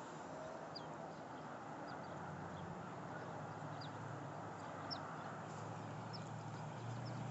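Faint steady drone of a helicopter circling overhead, with short high bird chirps scattered every second or so.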